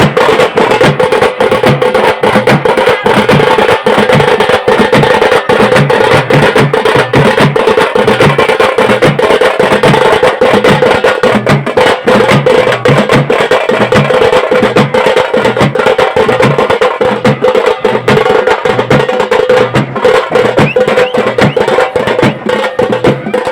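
Loud percussion music: drums played with rapid sharp strokes over a steady low beat, with a continuous held tone underneath.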